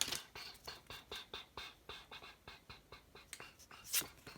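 Trading cards being handled and flipped through by hand: a faint, quick run of light card clicks and rustles, with a slightly louder rustle near the end.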